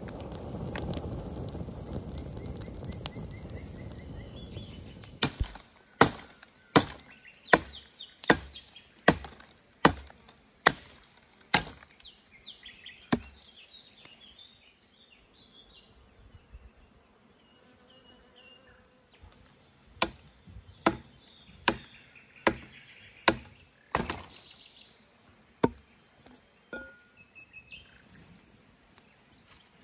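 Hatchet chopping kindling on a wooden stump: a run of about nine sharp, evenly spaced strikes, roughly one a second, then a pause and another half-dozen strikes. A steady rushing noise fills the first few seconds, and small bird chirps are heard in the pause.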